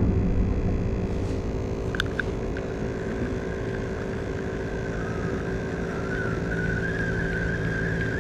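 Steady low engine rumble with a hum that holds its pitch and a faint high whine that grows a little louder after about five seconds. A few light clicks come about two seconds in.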